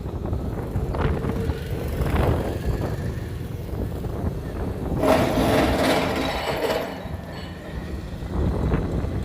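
Heavy construction machinery running, with a steady low rumble; about five seconds in, a louder rush of noise lasts roughly two seconds.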